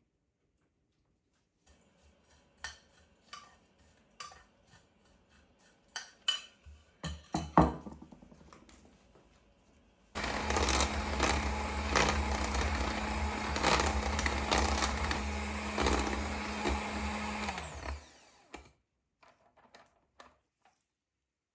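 A few clicks and knocks of things being handled, then a small electric kitchen appliance motor runs for about eight seconds with a steady whir and hum, winding down in pitch as it is switched off.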